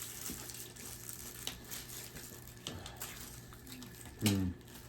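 Rustling and crinkling of snack packaging, with scattered small clicks, and a brief voice sound about four seconds in.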